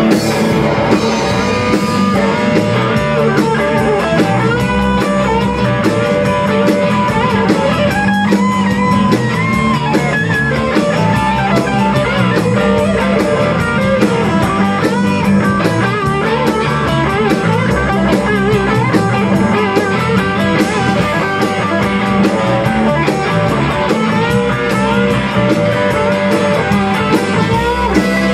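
Rock band playing live with no vocals: a lead electric guitar plays a solo full of string bends over a second electric guitar and a drum kit.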